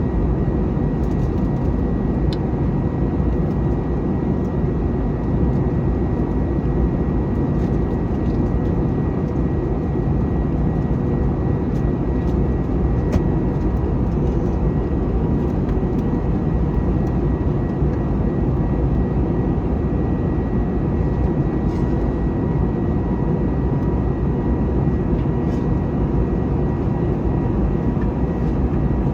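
Steady cabin noise inside an Airbus A321neo airliner: an even roar of its Pratt & Whitney geared turbofan engines and rushing air, with a faint steady high tone running through it.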